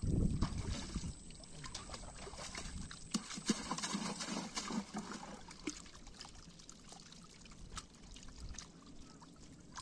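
Water sloshing and trickling around a net of small fish held in shallow pond water, with scattered small splashes and drips as the fish are handled; a louder slosh in the first second.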